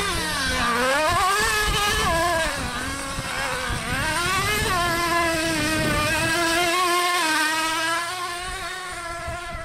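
Nitro RC truck's small two-stroke glow-fuel engine revving, its pitch falling and climbing with the throttle for the first few seconds, then held nearly steady for the rest.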